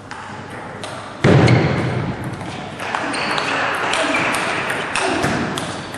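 Table tennis ball clicking off the bats and table in a rally, about two hits a second. About a second in comes a sudden loud thump, and voices follow.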